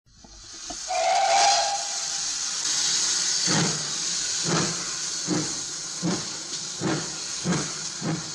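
Steam locomotive sounding a short whistle of about a second, then blowing off a loud hiss of steam. It then starts away with slow, even exhaust chuffs that quicken slightly as it gathers speed.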